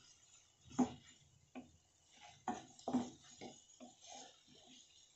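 Wooden spatula stirring and tossing noodles in a metal kadai, giving irregular knocks and scrapes against the pan.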